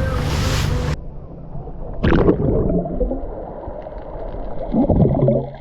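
Wind buffeting the microphone over sea noise from a sailing boat, cutting off abruptly about a second in. After the cut comes quieter water gurgling with two louder bursts, one about two seconds in and one near the end.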